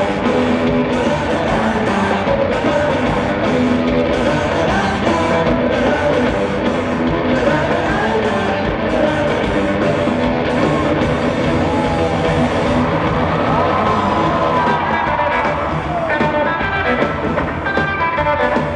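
Live rock band playing in an arena, heard from the audience: electric guitar over a drum kit and bass, loud and steady.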